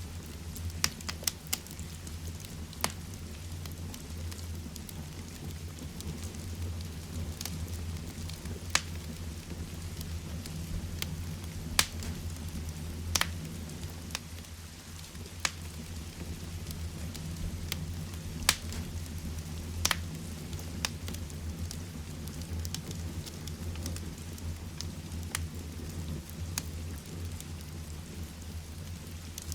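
Heavy rain falling steadily with a deep rumble underneath, mixed with a wood fire in a fireplace crackling, giving scattered, irregular sharp pops.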